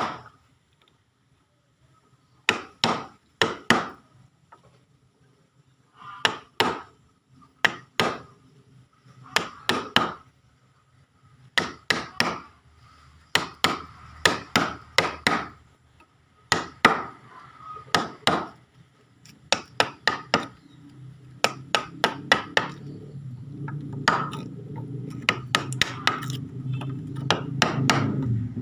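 Hammer driving a chisel into a wooden frame to chop out a mortise by hand: sharp blows in quick groups of two to four, every second or two, each with a slight ringing note. In the last seven seconds a low hum rises beneath the blows.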